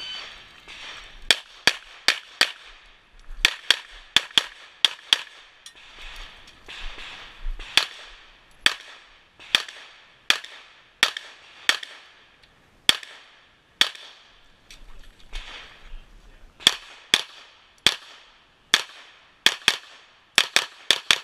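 Glock 9mm pistol shots in quick pairs, the two shots of a pair about a third of a second apart, with gaps of one to two seconds between strings: a run through a practical-shooting stage on the clock.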